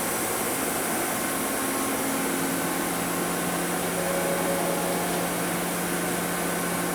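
Steady hum and hiss of a powered-up CNC turning center idling in a machine shop, with a low even tone under it.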